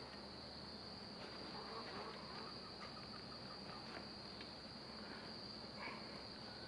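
Faint, steady, high-pitched chorus of insects chirring without pause.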